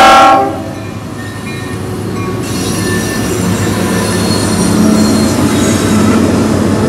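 A diesel locomotive horn cuts off about half a second in. Then the lead locomotives of a coal train pass close by: a Norfolk Southern EMD SD50 followed by a Union Pacific GE AC44CW. Their diesel engines give a steady low drone over the rumble of the wheels on the rails, growing louder as they go by.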